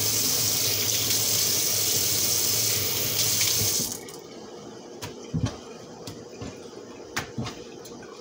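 Kitchen tap running into the sink as a paper towel is wetted under it, shut off suddenly about four seconds in. A few light clicks and a soft thump follow as the wet towel is handled.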